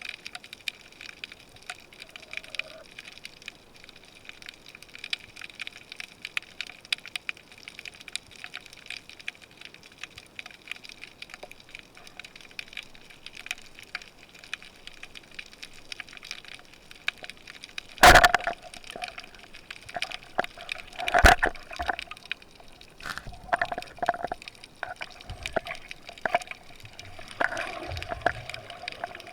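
Underwater recording: a steady crackle of many tiny clicks in the water. Two loud knocks come about three seconds apart past the middle, followed by a few fainter knocks.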